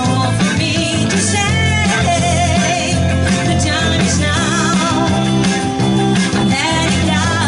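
Live rock band playing on a PA: electric guitar and drum kit, with singing over the band.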